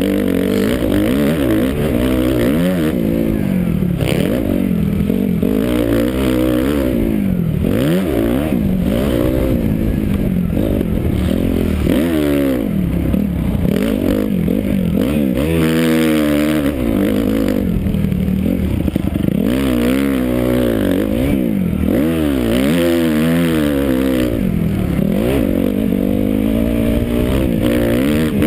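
250 motocross bike engine, heard from a helmet camera, revving up and dropping off again and again as the rider opens and closes the throttle around the track.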